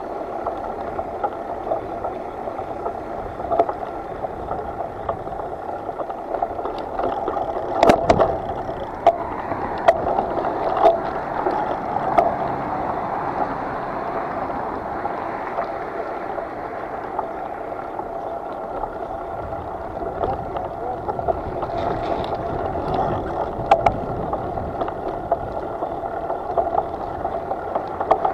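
Steady rushing noise with scattered sharp knocks, the loudest about eight seconds in.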